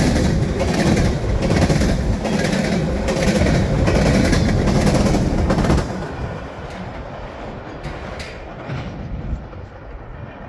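Freight train cars rolling past close by, their steel wheels clacking over the rail joints in a repeating rhythm. As the last hopper car goes by about six seconds in, the sound drops off sharply to a much quieter, fading rumble.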